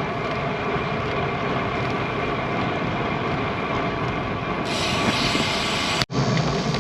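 Steady wind and road noise on a moving bicycle's microphone, with a brighter hiss coming in about two-thirds through. The sound cuts out for an instant near the end.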